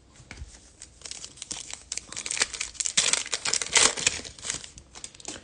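Foil wrapper of a Panini Contenders football card pack crinkling and tearing as it is handled and ripped open, in a dense run of irregular crackles that is busiest about two to four seconds in.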